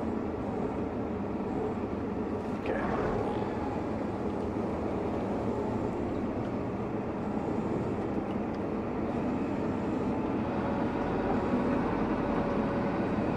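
Tractor and trailed carrot harvester running steadily in the field, an even mechanical drone, with a brief faint knock about two and a half seconds in.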